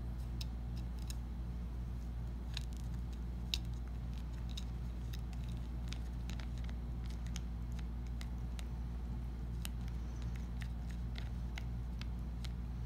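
Cat gnawing on a wooden drumstick: irregular small clicks and crunches of teeth on wood, over a steady low hum.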